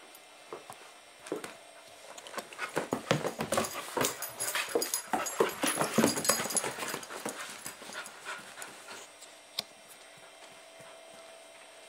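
German Shepherd puppy panting close to the microphone, the panting loudest and quickest through the middle of the stretch and fading towards the end.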